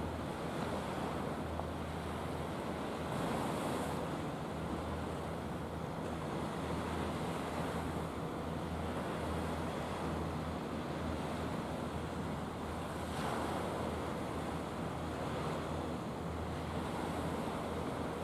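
Steady wash of sea water and wind on the microphone, with a low steady hum underneath.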